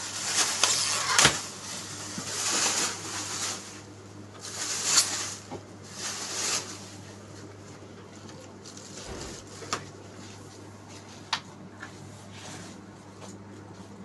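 Rustling and knocking handling noises, busiest over the first half, then a few separate sharp clicks, over a steady low hum.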